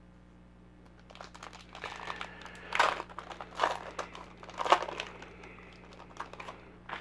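Foil wrapper of a Panini Contenders football card pack crinkling as it is handled and opened, starting about a second in, with three louder crackles in the middle.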